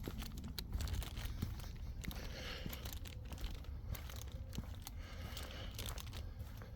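Irregular rustling, crinkling and crunching with many scattered sharp clicks, over a steady low rumble.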